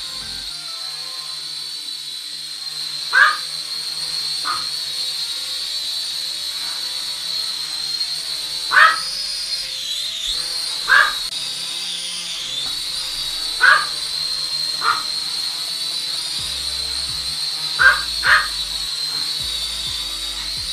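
Flymax 2 toy quadcopter's motors and propellers giving a steady high-pitched whine that wavers in pitch around the middle as the throttle changes, over quiet background music. About eight short, sharp, animal-like calls break in and are the loudest sounds.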